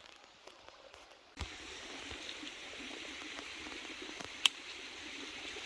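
Faint forest quiet, then about a second and a half in a steady rush of flowing stream water starts abruptly, with one sharp click later on.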